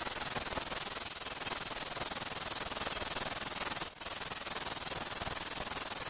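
Continuous abrasive scraping on a plaster wall surface, with a brief break about four seconds in.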